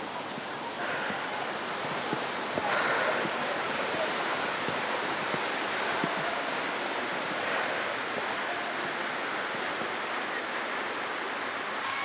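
Steady rushing of a mountain waterfall, with two brief louder swishes, about three and seven and a half seconds in.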